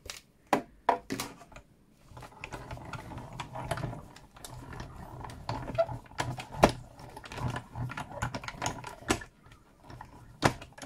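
Stampin' Up! hand-cranked cut-and-emboss machine: a few sharp plastic clacks as the plate sandwich is set on the platform. Then, from about two seconds in, a steady grinding rumble with rapid clicking as the sandwich is cranked through the rollers to die-cut a leaf from cardstock, with a loud clack near the end.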